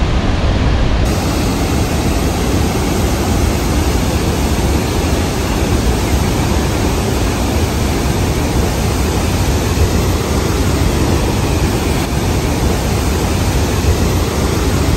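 Niagara Falls' American Falls thundering at close range: a loud, steady rush of falling water with a deep rumble beneath it.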